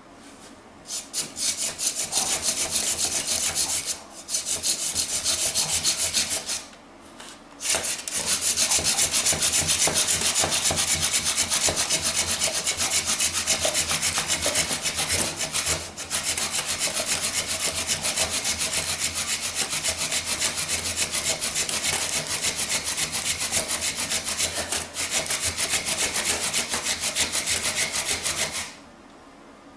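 Bow drill with a shoelace bowstring: a pine spindle sawn back and forth in a pine fireboard, rubbing and rasping in quick strokes as friction builds heat in the smoking notch. It pauses briefly twice in the first eight seconds, then runs steadily and stops near the end.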